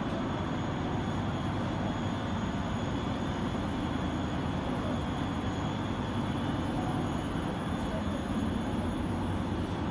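Steady drone of carpet-making machinery running on a factory production line, with rollers turning.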